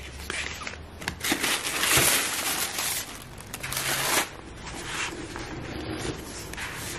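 Tissue paper lining a cardboard box crinkling and rustling as hands dig through it. It is loudest from about two to four seconds in.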